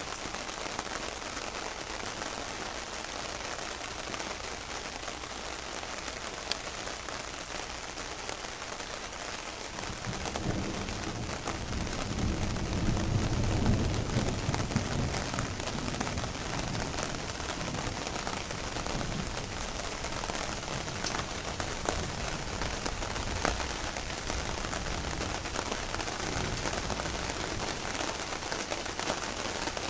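Steady rain hissing on surfaces, with a low roll of thunder that swells about a third of the way in, peaks near the middle and dies away over several seconds.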